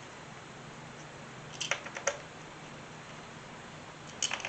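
A few short, sharp clicks and taps, a cluster about two seconds in and another near the end, of parts and small hand tools being handled while coil packs are fitted on the engine, over a faint steady hum.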